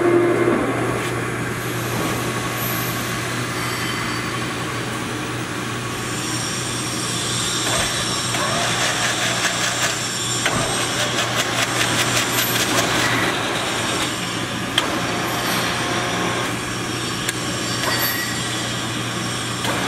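Poreba heavy-duty engine lathe running under power, its spindle and geared headstock giving a steady mechanical hum. About six seconds in a higher whine and a rapid ticking from the drive join it, with a few sharp clicks as control buttons are pressed.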